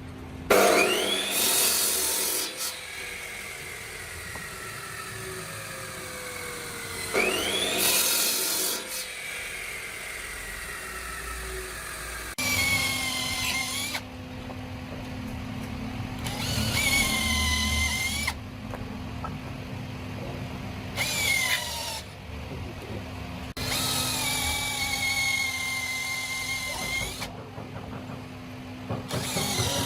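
Electric power tools running in short bursts. Twice a tool spins up and winds down slowly over several seconds. Then a drill-like motor runs in five short bursts, its whine dipping as it takes load.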